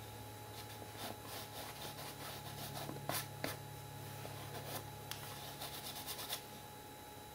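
Fingers rubbing and smearing acrylic paint across a painted canvas: soft, uneven scratchy rubbing strokes, with two sharper scrapes about three seconds in. A faint steady low hum runs underneath.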